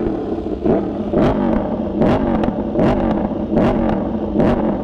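Aprilia RSV4's 65-degree V4 engine revved on the spot with repeated sharp throttle blips, about six in quick succession, each a quick rise and fall in pitch.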